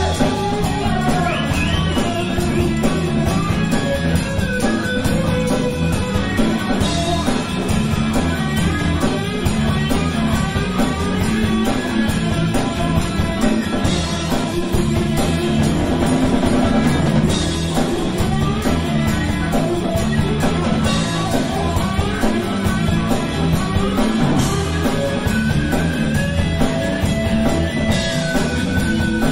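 A live rock band playing loudly and steadily: electric guitars over a drum kit keeping a regular beat.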